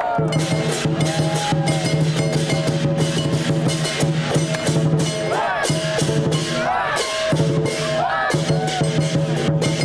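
Chinese lion dance percussion band playing: a big drum beaten fast and steadily under clashing cymbals and gongs. A few short pitched sounds rise and fall above the beat a little past the middle.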